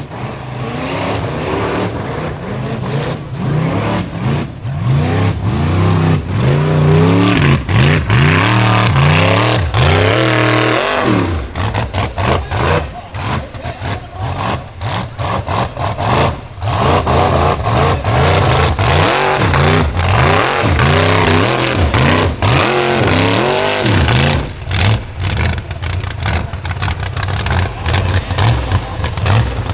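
Unlimited-class Formula Offroad buggy's engine revving hard, its pitch surging up and down again and again as the throttle is worked under load on a steep dirt climb. Many short sharp cracks run through it.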